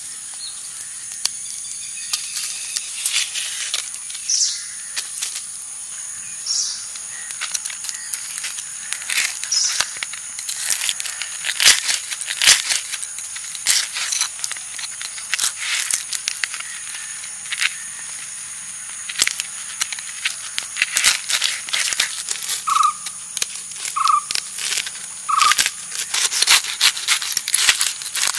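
Sharp crackles and clicks, irregular throughout, as a knife cuts and pries at the brittle charred crust of a lump roasted in campfire embers, over a steady high insect drone. A bird calls three short times about a second apart near the end.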